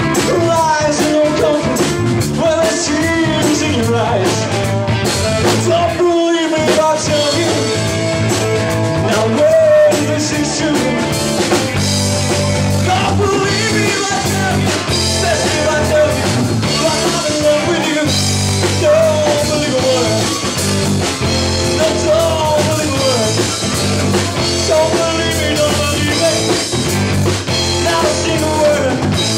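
Live rock band playing loud, with electric guitar, bass guitar, drums and a singer. The bass and low end drop out for a moment about six seconds in, then come back fuller.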